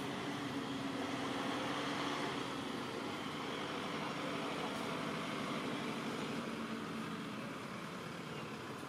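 Steady background hum of engine noise with a few faint steady tones and no distinct event.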